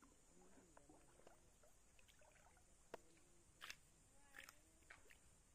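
Near silence: faint outdoor ambience with a steady hiss and a few soft clicks.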